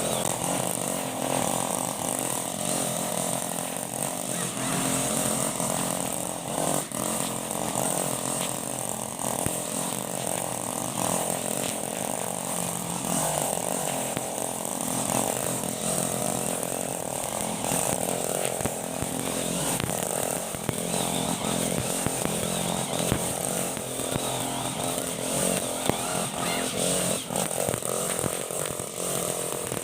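Honda GX35 four-stroke brush cutter engine running fast, a steady buzzing drone whose pitch wavers slightly as the load changes, the sound likened to a helicopter.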